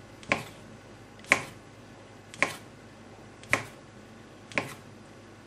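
Kitchen knife chopping through folded fresh pasta dough and tapping the stone countertop, five sharp knocks about a second apart.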